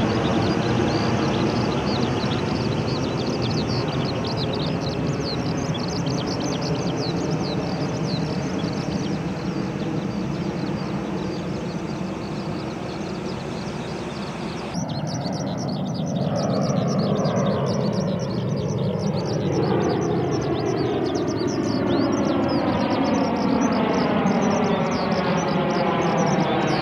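Embraer 170 airliner's turbofan jet engines heard overhead in cloud: a steady rushing jet noise with a slow sweeping, phasing tone as the aircraft moves. After an abrupt cut about halfway through, the jet noise comes back with a slowly falling sweep.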